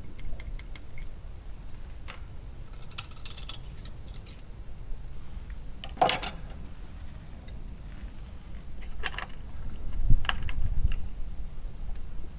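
Small clicks and clatter of muzzle-loading gear being handled on a wooden loading bench, with one louder sharp knock about six seconds in.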